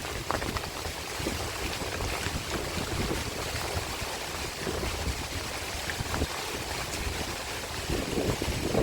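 Heavy rain driven by strong wind: a steady rushing noise with a low rumble, growing louder near the end.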